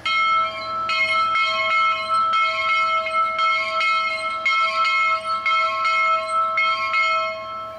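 Station bell on a post-mounted frame rung by hand with a pull rope: the clapper strikes about once a second and the metallic tone rings on between strikes.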